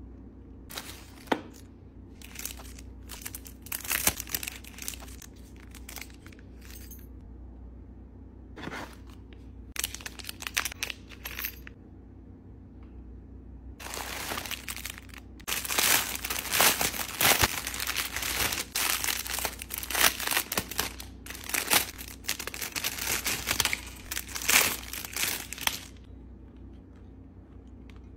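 Plastic courier mailer bag being handled and torn open: scattered short crinkles at first, then about twelve seconds of continuous ripping and crumpling of the plastic before it settles near the end.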